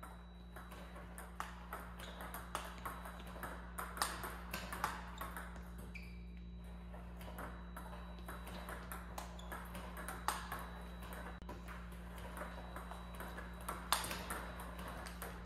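Table tennis rally against a ball-feeding robot: plastic balls fired from the robot, bouncing on the table and struck by a paddle, making a steady run of sharp clicks, some hits louder than others.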